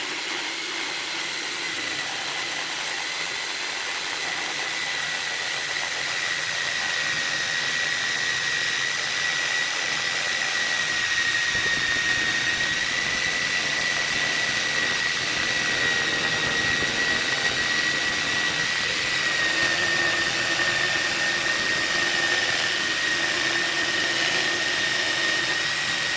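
Electric power tool motor running steadily under light load, with a constant high whine over a broad noise.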